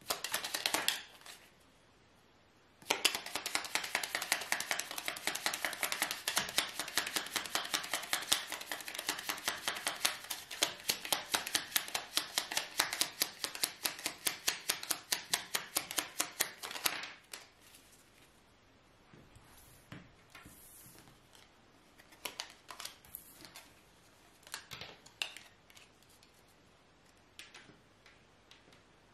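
A deck of fortune-telling cards being shuffled by hand: a fast, even run of card slaps starts a few seconds in and stops after about fourteen seconds, then a few scattered clicks of cards being handled and laid down.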